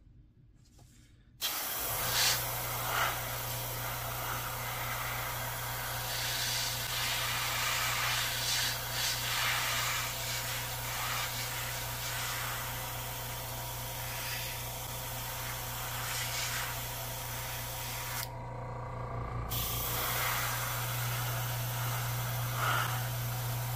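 Gravity-feed airbrush spraying primer: a steady hiss of air that starts about a second and a half in, stops for about a second near the end and then resumes, over a steady low hum.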